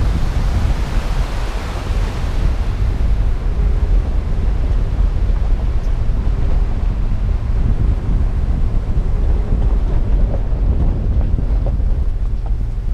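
Off-road vehicle driving over a rough gravel track: a steady low rumble of engine, tyres and wind on the microphone. The rush of a river alongside is heard in the first few seconds and fades out.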